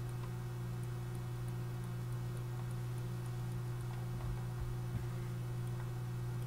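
Steady low electrical hum, with faint, quick clicks over it: a computer mouse clicking as pen-tool points are placed.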